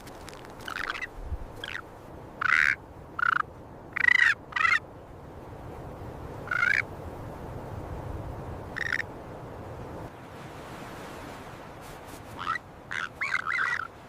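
Ravens calling: short, harsh croaking calls, several spaced out in the first half, then a quick run of them near the end, over a steady background hiss.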